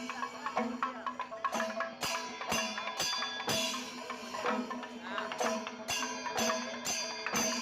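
Instrumental music with a steady drum beat and sustained melodic tones.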